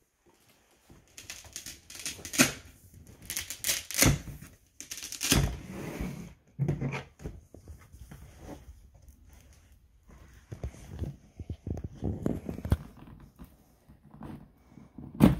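A cardboard action-figure box being handled on a table: irregular knocks, taps and rustles as it is picked up, turned and laid flat, then scissors cutting at its tape seals in the latter part, with a sharp knock near the end.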